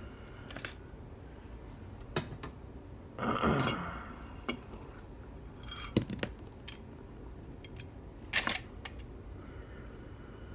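Small metal hand tools being handled, clinking against each other and a hard surface: a series of separate clicks and knocks, with a short scraping rattle a few seconds in.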